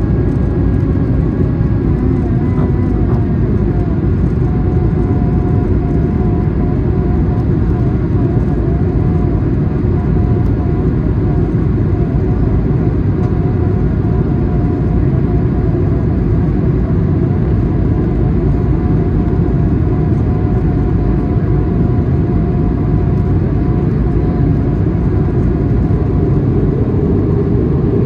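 Cabin noise inside an Airbus A220-300: a steady rumble of its Pratt & Whitney geared turbofan engines and airflow, with a faint wavering whine above it.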